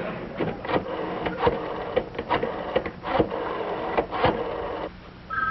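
Rotary dial of a wall payphone being dialed: irregular runs of mechanical clicks as the dial is turned and spins back, for about four seconds. Just before the end a steady two-tone telephone ring starts.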